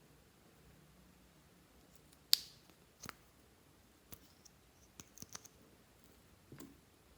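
Fluffy slime being worked by hand, giving scattered small clicks and pops, one sharper pop about two seconds in.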